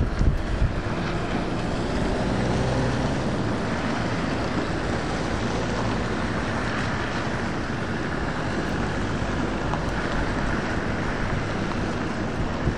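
British Army Land Rover Defender diesel engines running steadily as a convoy drives past on a gravel track, mixed with tyre noise and some wind noise on the microphone.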